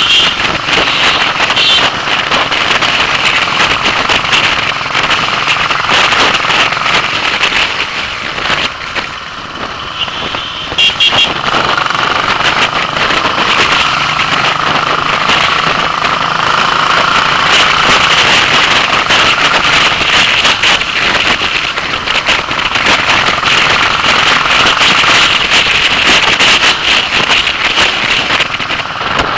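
Royal Enfield single-cylinder motorcycle engine running under way with a rapid exhaust beat, mixed with wind noise on the microphone. The engine note drops for a couple of seconds about a third of the way in, then picks up again.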